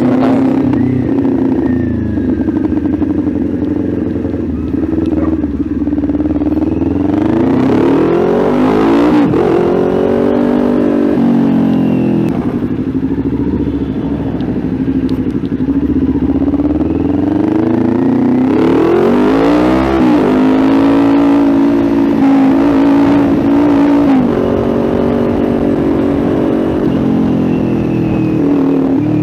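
Kawasaki Ninja 400 parallel-twin running through an aftermarket SC Project exhaust while riding. The engine note climbs and drops back twice as the bike picks up speed. The rider calls the pipe too loud.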